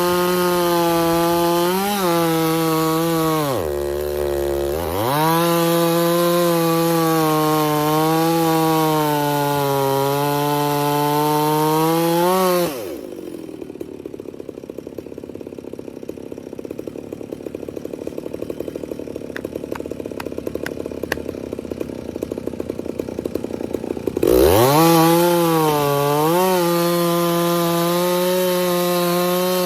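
Two-stroke chainsaw running at high revs while cutting wood, its pitch sagging under load about four seconds in. About thirteen seconds in it drops to idle, idles for about eleven seconds, then revs back up to full speed and keeps cutting.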